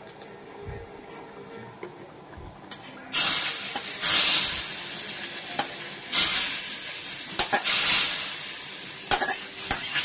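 A hot oil tempering of panch phoron, bay leaf and dried chillies is scraped from a small metal karai into a pot of chana dal. It sizzles loudly in three bursts, about three, six and eight seconds in, each fading off. A spatula clinks and scrapes against the pans between the bursts.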